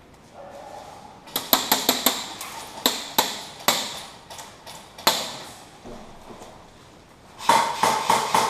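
Airsoft electric guns (AEGs) firing: a run of sharp, irregular shots, then after a short pause a faster string of shots near the end.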